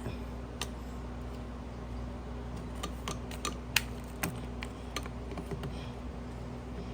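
Scattered, irregular light clicks and taps of small metal parts and bolts being handled while a part is fitted back onto a lawn mower engine, over a faint steady hum.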